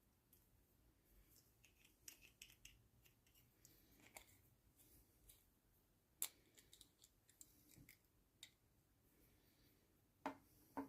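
Faint scattered clicks and light ticks of small metal pen-kit parts being handled and fitted together, with one sharp click about six seconds in and two louder knocks near the end.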